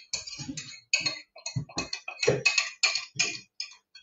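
Wooden spoon stirring thick oat-flour pancake batter in a glass bowl, knocking and scraping against the bowl in quick strokes, about four a second.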